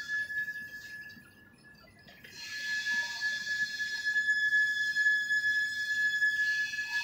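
Cement-bag loading conveyor running, with a steady high-pitched squeal throughout and a shrill mechanical rattle that fades about a second in and returns a second later.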